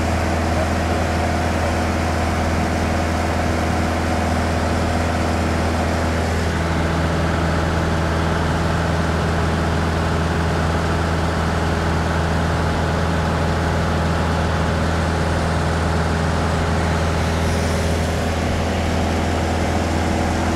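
Light touring aircraft's engine and propeller droning steadily in cruise, heard inside the cabin as a loud, even low hum. A few of its tones shift slightly about six seconds in.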